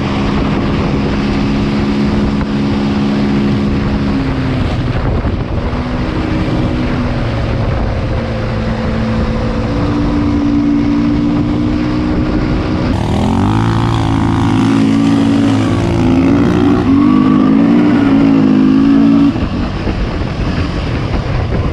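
Aeon Cobra quad engines running at a steady low pitch while the quads roll downhill, with wind on the microphone. About two thirds in one engine gets louder, its pitch wavering up and down as it is throttled, then drops back near the end.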